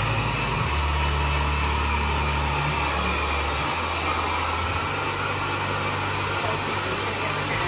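Handheld hair dryer blowing steadily while it dries a client's wet hair.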